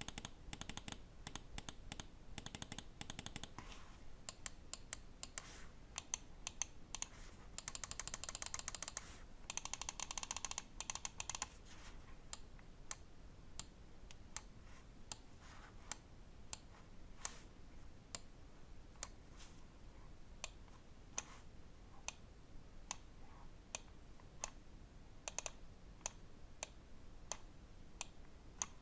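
Button clicks and scroll-wheel ticks of a Pulsar Xlite V3 Large gaming mouse: dense runs of rapid ticks in the first half, then single sharp clicks about one to two a second.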